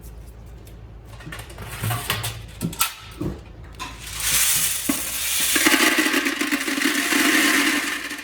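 TOHIN TVC-90H industrial wet-and-dry vacuum taking up liquid with solid debris. First comes a rattle of hard bits clattering through the hose, then a loud steady rush of suction with a motor hum under it. The sound stops suddenly at the end.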